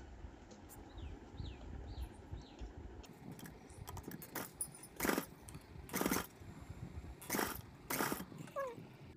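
RIMA straight-stitch sewing machine running in several short bursts of a few stitches each, every burst a quick metallic clatter of rapid clicks, starting about three seconds in.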